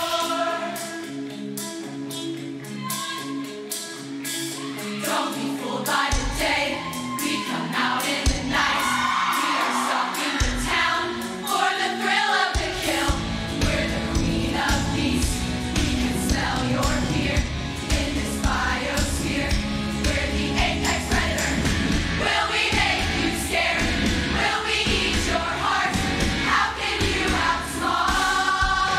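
Large women's chorus singing over a pop backing track with a drum beat. Deep bass hits come in about six seconds in, and the full bass line and beat from about twelve seconds on.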